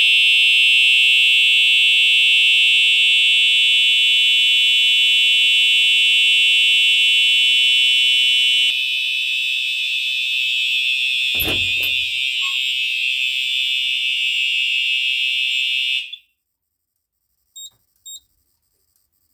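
Home fire alarm system's notification devices sounding a loud, steady high-pitched tone. About halfway through the tone turns rougher and wavering, with a thump a few seconds later, and then it cuts off suddenly. Two short faint beeps follow.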